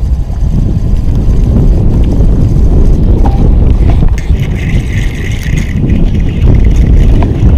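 Heavy wind buffeting the action camera's microphone, a steady low rumble, with a faint higher hiss for about a second and a half near the middle.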